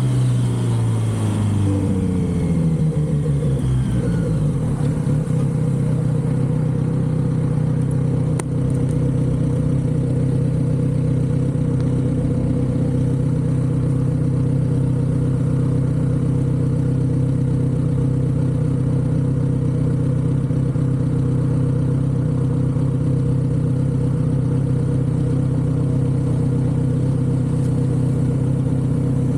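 Kawasaki Z900RS 948 cc inline-four engine through its stock exhaust, revs falling over the first few seconds, then holding a steady idle. A single sharp click is heard about eight seconds in.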